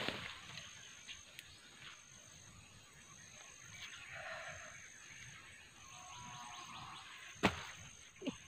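A small hand digging tool struck into soil, with sharp hits at the start, about seven and a half seconds in and once more just after. Between the hits comes faint scraping of soil and roots by hand, over a faint steady insect trill.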